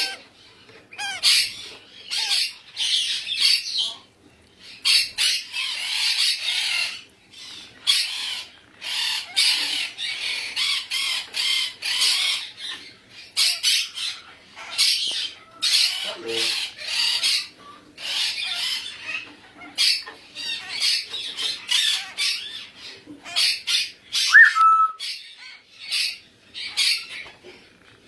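Baby African grey parrots squawking: a steady run of short, raspy calls, one or two a second with brief pauses, and a single short whistle near the end.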